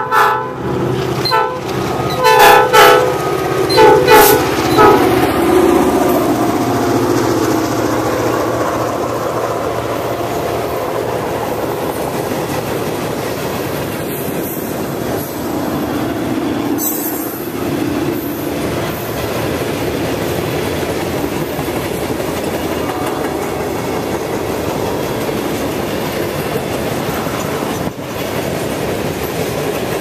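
Ex-Southern GP38 high-hood diesel locomotive sounding its horn in several short blasts over the first few seconds as it approaches, then the freight train rolling past with a steady rumble of wheels on rail.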